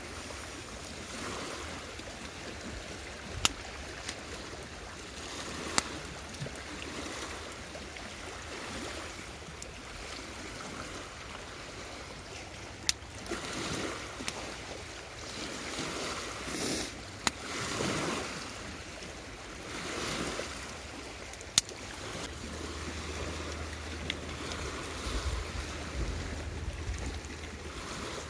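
A steady rushing noise with a few sharp, isolated clicks spread several seconds apart, and louder swells in the middle.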